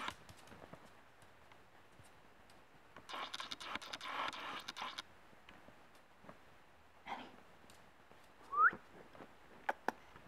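Pomeranian puppy scrabbling on a laminate floor while playing with a leash: a couple of seconds of scratching and pattering from claws and leash. Later comes one short, loud, rising whistle-like squeak, followed by a few sharp clicks.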